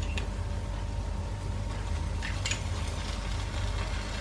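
Steady low hum and faint hiss of the pan of sautéed chili-garlic paste on the stove, with a few soft clicks of a metal spoon against a small ceramic bowl as chili sauce is scooped into the pan.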